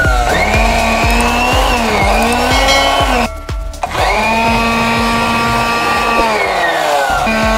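Small 12 V DC motor of a 3D-printed handheld blower, run from a 3S LiPo battery, whining as it spins up, cutting out about three seconds in, starting again about a second later, winding down near the end and starting once more. Background music with a steady beat underneath.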